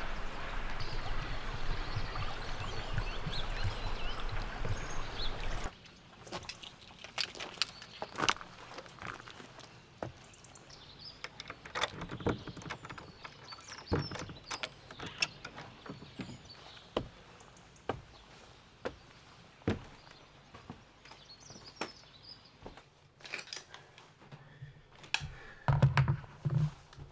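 Running water of a small woodland stream, a steady rushing that cuts off abruptly about six seconds in. Then a quiet stretch of scattered sharp clicks and light knocks, with a louder cluster of low thumps near the end.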